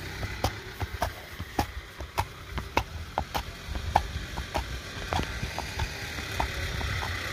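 Draft horse's hooves striking asphalt at a walk: a regular clip-clop, a sharp knock about every half second, over a steady low rumble.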